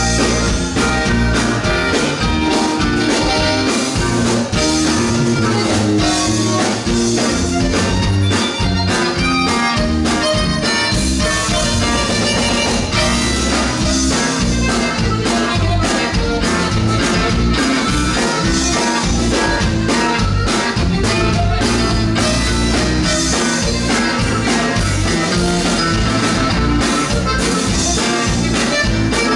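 Live band playing a song: electric bass, guitars and drum kit, playing steadily and loud.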